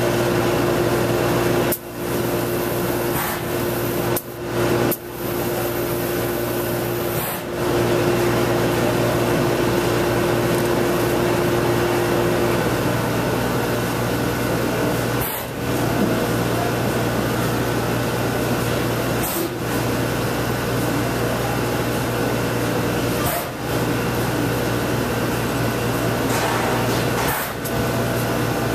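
Steady rush of air from a portable paint booth's ventilation and a spray gun's air hiss while paint is sprayed, over a low hum, dipping out briefly several times.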